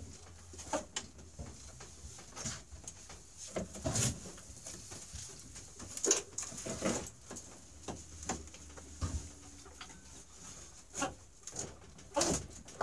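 Irregular metal clunks and knocks as a 1995 Polaris Indy 600 XLT snowmobile engine is rocked and wiggled forward off its rear mounting studs in the chassis.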